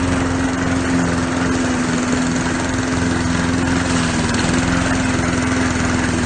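Honda GCV135 135cc overhead-cam lawn mower engine running steadily at its fast (rabbit) throttle setting, with the self-propel drive engaged and the mower driving itself forward.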